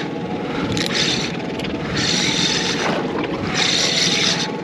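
Boat at sea: a steady low motor hum under wind and water noise, with a hiss that swells and fades about every second and a half.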